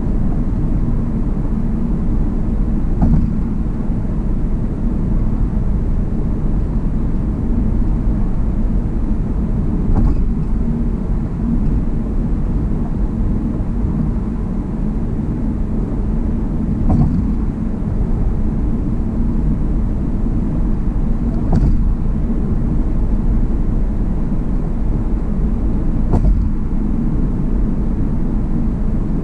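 Steady low road rumble of a car driving at highway speed on a concrete bridge deck, heard from inside the car. A short thump comes every five to seven seconds, five in all, as the tyres cross joints in the deck.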